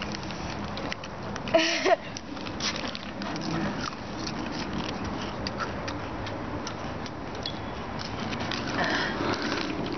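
A boy's short, wavering vocal noise about one and a half seconds in, over a steady background hiss with scattered small clicks and rustles.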